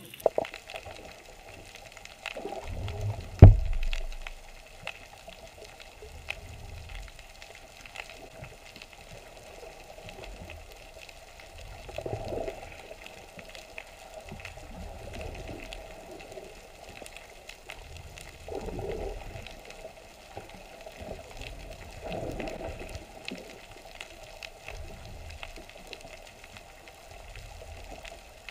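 Water sloshing against a boat's hull in swells every few seconds. There is one sharp knock about three and a half seconds in.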